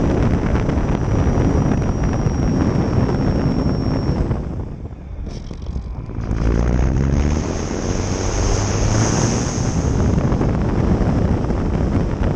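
Electric motor and propeller of an E-flite Valiant 1.3m RC plane in flight, heard from an onboard camera with heavy wind rushing over the microphone. About four seconds in the motor whine stops and the sound drops for a couple of seconds as the throttle is cut. Power then comes back on and the pitch climbs.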